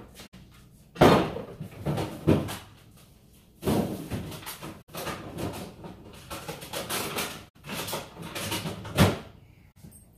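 A run of knocks, thuds and clattering, with sharp bangs about a second in, near four seconds and near nine seconds.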